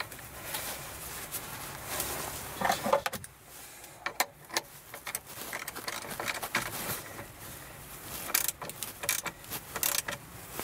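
A wrench clinking and ticking against a car battery's positive terminal clamp and bolt as the clamp is tightened onto the battery post: irregular metallic clicks and taps, busiest near the end.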